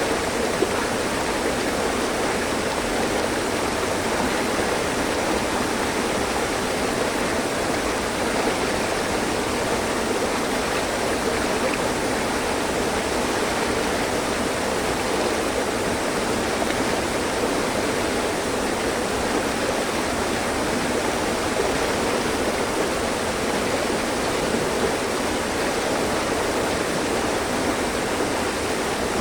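Mountain stream flowing steadily over rocks, a constant rushing of water without breaks.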